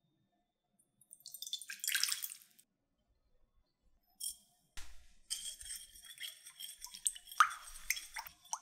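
Cold water is poured from a glass pitcher into a glass bowl, splashing for about a second and a half. A few seconds later come two short taps as salt goes in. Then a spatula stirs the salt water to dissolve the salt, swishing and scraping with a few sharp clinks against the glass bowl.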